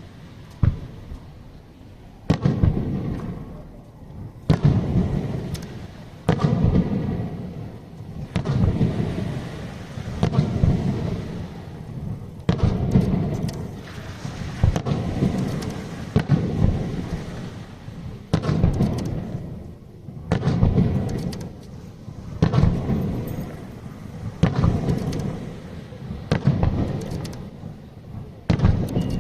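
Aerial fireworks shells bursting in steady succession, a deep boom about every two seconds, each followed by a rolling, echoing rumble.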